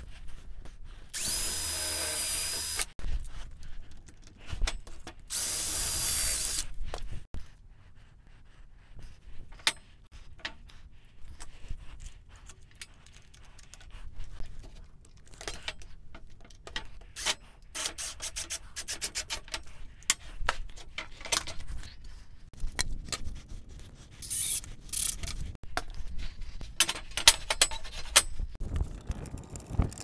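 Cordless drill pre-drilling and driving screws into a wooden block clamped to a steel parallel bar. There are two runs of about two seconds each in the first seconds, then scattered clicks and knocks of handling, and more short drill runs near the end.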